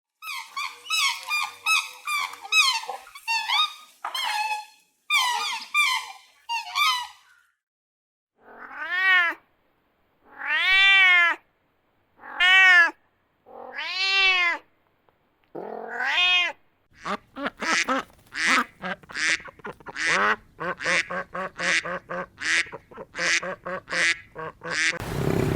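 A cat meowing five times, each meow rising and then falling in pitch, between a run of fast, high chirping calls at the start and a quick series of short calls near the end.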